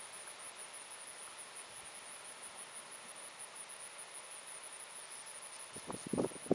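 Insects trilling: a steady, high-pitched chirp pulsing in a fast even rhythm. A few short rustles come in near the end.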